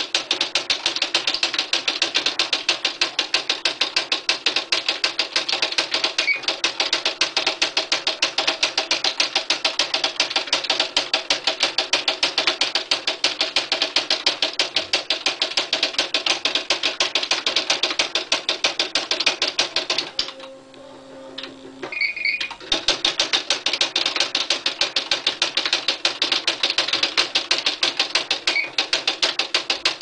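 Smith Corona SD750 electronic typewriter printing: a fast, even stream of print strikes. About two-thirds of the way through the strikes stop for roughly two seconds while a low motor hum sounds, then the strikes resume.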